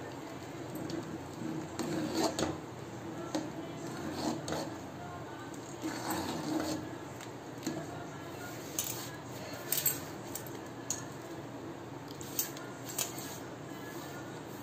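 Metal ladle stirring in a pressure-cooker pot, with irregular clinks and scrapes against the pot's sides as jaggery is mixed into the payasam, over a steady low hum.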